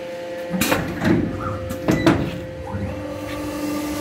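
Robland CNC boring machine working: over its constant running hum, three sharp hissing, clunking strokes in the first two seconds, typical of its pneumatic cylinders moving, then a new steady motor tone from about three seconds in.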